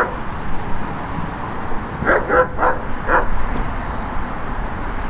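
A dog barking: four short yaps in quick succession about two seconds in, over a steady low background hum.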